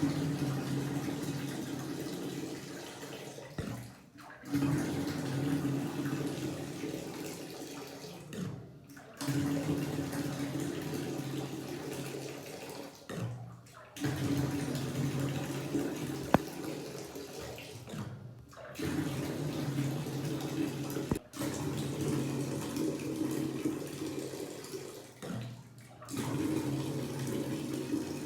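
Water rushing out of a water heater's drain as the tank is flushed of sediment and dirty water. The flow is steady, broken several times by short abrupt gaps.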